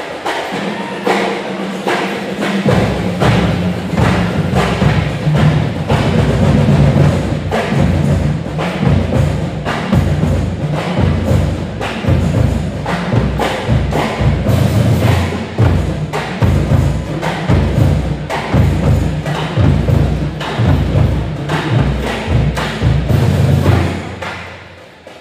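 Pep band playing a loud, drum-driven tune, with marching bass drums beating a steady rhythm under brass and a stepping bass line; the music stops near the end.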